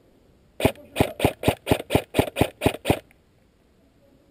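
Airsoft M4 rifle firing a string of about ten single shots at about four a second, each a sharp crack, stopping about three seconds in.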